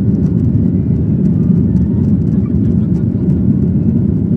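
Steady, loud low rumble of a Boeing 737-900's CFM56-7B turbofan engines and airflow, heard from inside the passenger cabin.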